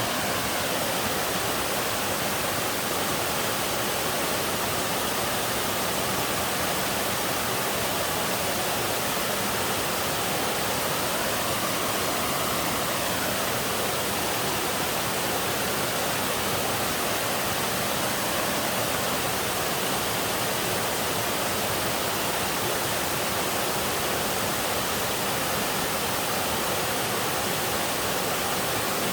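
Upper tier of a two-tier mountain waterfall pouring steadily: a constant, even rush of falling water.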